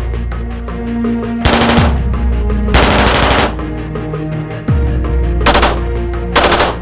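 Submachine gun firing four short bursts of rapid automatic fire, each about half a second long, over a background music bed.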